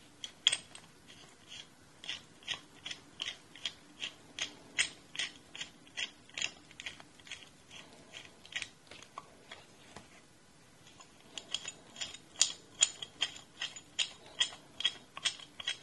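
Ridgid 10-inch pipe wrench being adjusted: the knurled adjusting nut is rolled with the thumb, moving the hook jaw and giving a run of light metallic clicks at about three a second. The clicking stops for about a second and a half a little past halfway, then resumes.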